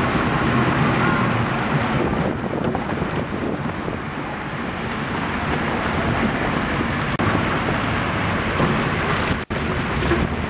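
Steady wind rush on the microphone of a moving cargo tricycle, mixed with tyres hissing through wet slush on the road. The sound cuts out for an instant near the end.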